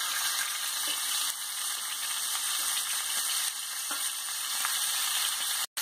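A whole chicken sizzling steadily in hot oil in a frying pan, being fried golden. The sizzle breaks off for a moment near the end.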